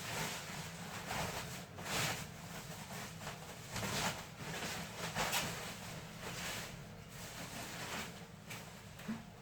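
Packaging being handled during unboxing: a string of short rustling and scraping noises, about one every second or so.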